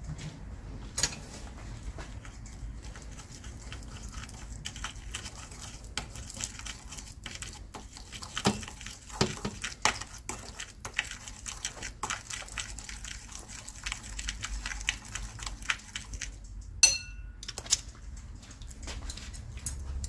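Chopsticks clicking and scraping against a ceramic bowl while stirring thick noodle seasoning sauce, with a sharper ringing clink near the end. A low steady hum runs underneath.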